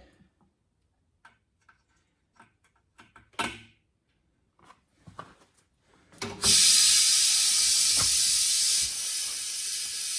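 A few light clicks and taps, then about six seconds in a loud, steady hiss starts suddenly: compressed air rushing into a truck tire through the valve stem with its core removed, to seat the bead.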